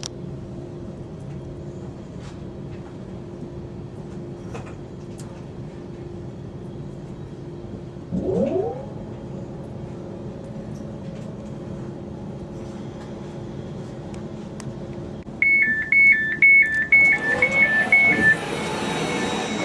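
Inside a Class 331 electric train arriving at its stop: a steady hum with a rising whine about eight seconds in. Near the end come rapid two-tone alternating beeps, the door alert as the doors are released.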